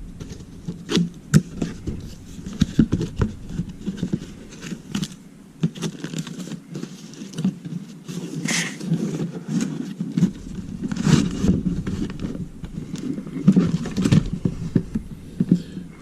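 Handling and unpacking of a boxed CPU cooler: irregular clicks, taps and scrapes of cardboard and packaging, with a couple of longer rustles around the middle.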